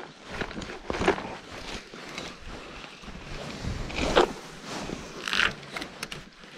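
A spinning rod being cast: a swish about four seconds in, the loudest sound. Then short whirring from the spinning reel as the lure is retrieved, among rustling of clothing close to the microphone.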